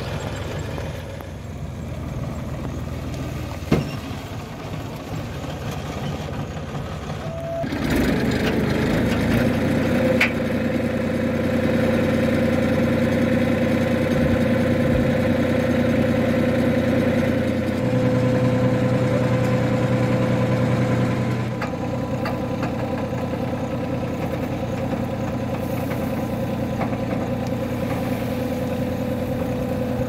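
New Holland 4010 tractor's diesel engine idling, then raised to a louder steady speed about eight seconds in while its hydraulics tip the loaded trolley bed. The steady speed lasts until the end. There is a single sharp knock about four seconds in.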